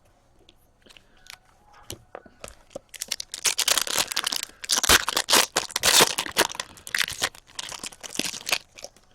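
A trading-card pack wrapper being torn open and crinkled, with cards handled, as hockey card packs are opened. A few faint clicks at first, then dense crackling and rustling from about three seconds in until just before the end.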